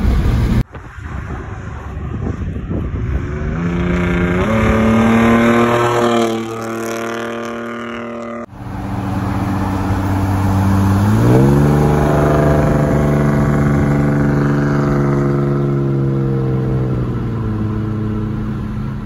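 Ford Explorer Sport Trac's 4.0-litre V6 through a new aftermarket Magnaflow exhaust, loud and raspy, heard from a car alongside as the truck pulls at quarter throttle. The engine note climbs in pitch and holds, cuts off abruptly about eight seconds in, then climbs again on a second pull a few seconds later and holds.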